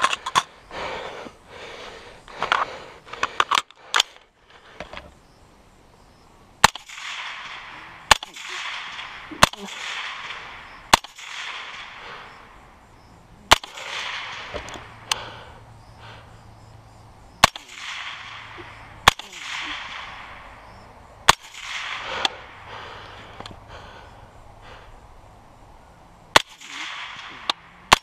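LWRC AR-pattern rifle firing a dozen or more single shots, spaced about one to three seconds apart, with a tighter cluster in the first few seconds; each crack trails off over a second or so.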